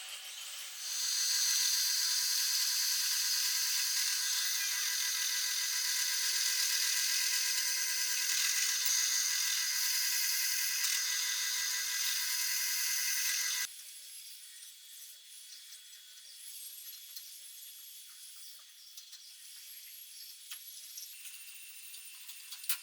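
Angle grinder running at full speed with a steady high-pitched whine, which stops abruptly about thirteen seconds in; a faint hiss follows.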